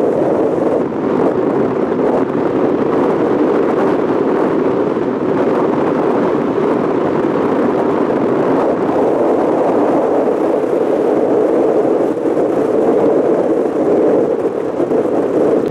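Steady wind blowing on the microphone, a loud even rushing noise.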